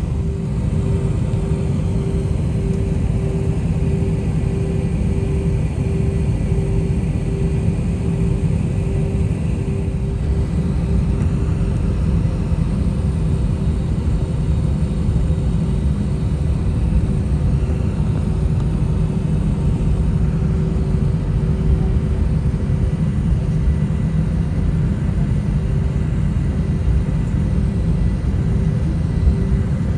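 Jet airliner cabin noise during taxi: a steady low engine rumble heard from inside the cabin, with a hum that pulses at an even pace.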